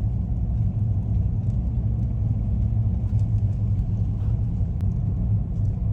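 A car driving slowly along a forest road: a steady low rumble of engine and tyres.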